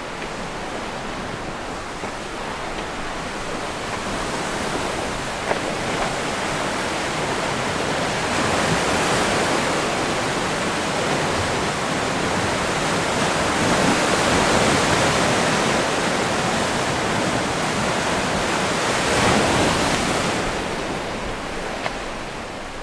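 Sea surf washing onto the shore, a steady rush that swells and eases about every five seconds.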